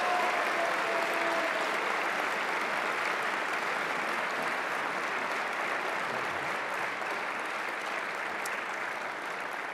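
Audience applauding steadily, slowly dying down toward the end.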